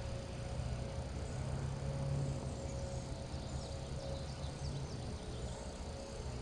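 A steady low hum with a faint steady tone in it, and small birds chirping repeatedly in short high notes over it.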